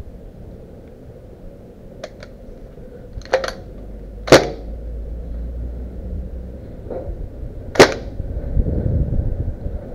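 Scattered single airsoft gun shots, sharp snaps at irregular intervals: a faint pair about two seconds in, then louder ones, the loudest about four and eight seconds in. Wind rumbles on the microphone toward the end.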